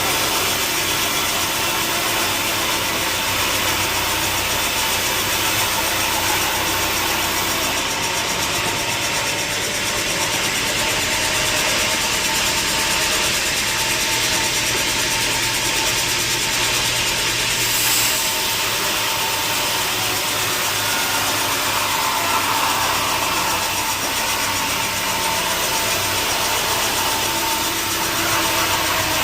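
Sawmill machinery running steadily and loudly, a dense mechanical whir with a constant whine.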